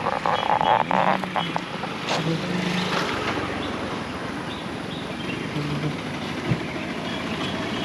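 A vehicle driving along: steady engine and road noise, with a few light clicks and knocks in the first second or two and a single knock near the end.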